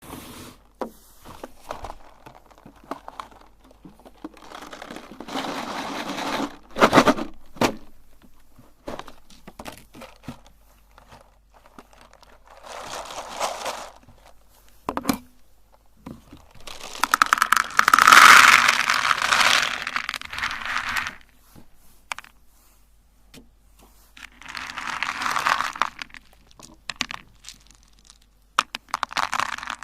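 Candy being crushed in a meat grinder: crunching and crackling in bursts a few seconds long, with scattered clicks between them, the longest and loudest burst a little past the middle.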